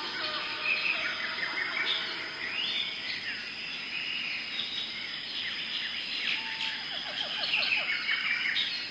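Forest bird chorus: several birds chirping and trilling over one another, with a quick run of lower repeated notes near the end, over a steady high insect drone.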